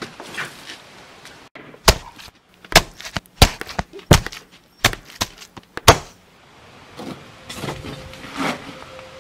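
Repeated heavy blows: about six loud whacks over some four seconds as a man brings his hand down hard again and again. Quieter scuffing follows, then a steady high ringing tone starts near the end.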